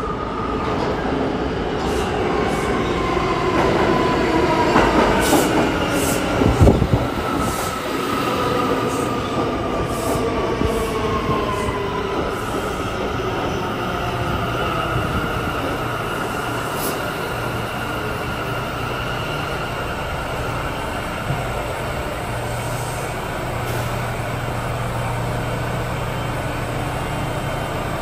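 R179 subway train pulling into the station, its whine falling in pitch as it slows over the first dozen seconds, with a loud clank about seven seconds in. It then stands at the platform with a steady hum.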